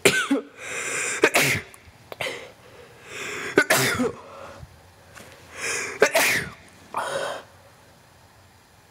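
A man sneezing repeatedly: three main sneezes about two and a half seconds apart, each a sudden burst after a drawn-out build-up of breath, with smaller sharp bursts at the start and near the end.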